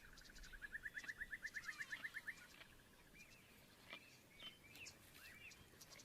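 Faint wild-bush ambience. A fast trill of rising chirps, about ten a second, runs for the first two seconds or so and then stops. Scattered short bird calls follow over faint high ticking.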